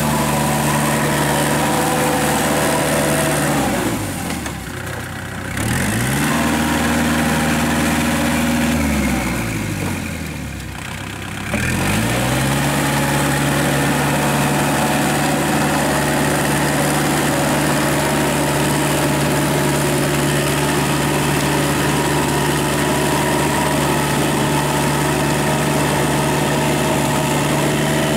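Kubota L5018 tractor's diesel engine running steadily under load, driving a Maschio rotary tiller. Twice the engine speed sags away and then climbs back up: about four seconds in and again from about nine to twelve seconds.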